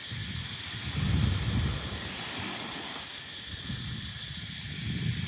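Small waves washing onto a sandy beach as a steady hiss, with wind buffeting the microphone in low rumbling gusts, strongest about a second in and again near the end.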